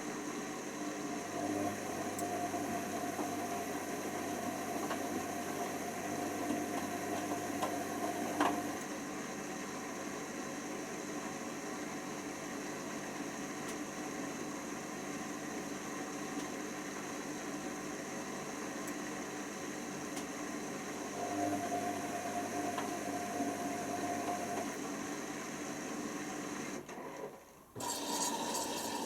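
Hoover Nextra washer dryer running its drum: a steady motor hum that comes in spells of several seconds with a pause between, as the drum turns, stops and turns again. Near the end the sound drops out briefly and comes back changed.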